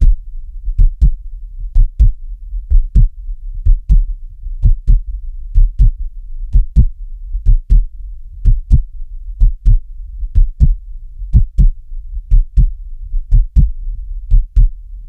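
Steady heartbeat: a slow, even lub-dub, about one double thump a second, over a low constant rumble.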